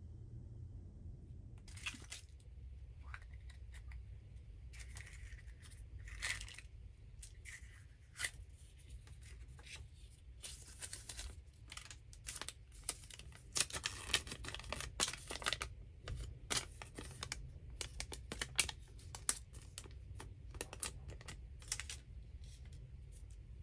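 Paper wrapping from a Kinder Surprise toy rustling, crinkling and tearing in the hands: a run of quick, irregular crackles that starts about two seconds in and is busiest in the middle.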